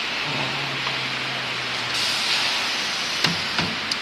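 Steady hiss of workshop noise around a uPVC window welding machine, with a low hum in the first second or so and a brief louder rush of hiss about two seconds in. Near the end, a few sharp clicks as PVC profile pieces are handled and set into the machine's clamping fixture.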